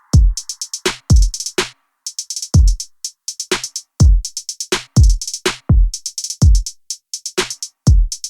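Electronic background music: a drum-machine beat of deep kick drums that drop in pitch, with rapid hi-hat rolls between them.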